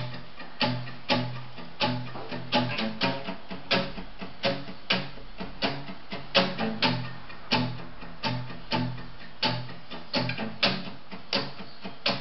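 Nylon-string classical guitar playing a rhythmic pattern of strummed chords, about two to three strums a second, as an instrumental introduction before the singing.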